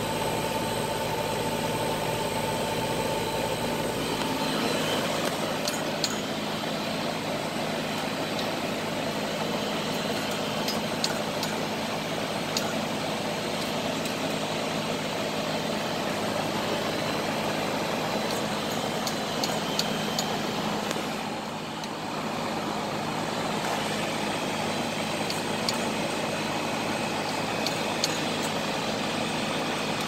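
2003 Goodman CPLE24-1A central air-conditioner condensing unit running: a steady low hum under the even rush of its condenser fan.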